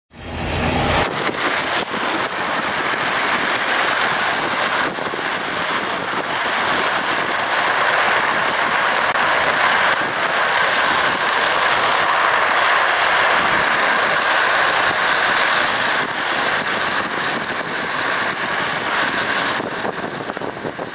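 Steady rushing road and wind noise of a car driving at speed; it cuts in abruptly at the start.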